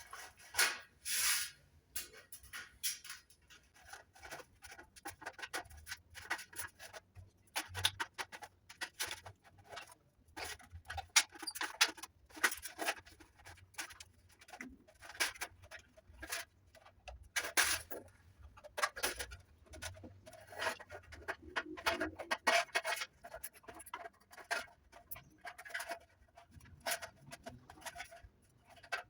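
Tin snips cutting thin sheet metal: an irregular run of sharp snips and clicks, several a second at times, with the sheet ringing briefly now and then, as a ring of short cuts is made around a circular hole.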